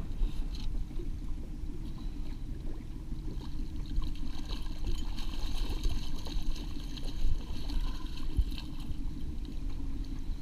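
A hooked cutthroat trout splashing and thrashing at the water's surface beside the boat, over the steady low rumble of the trolling boat's motor. The splashing is busiest from a few seconds in until near the end.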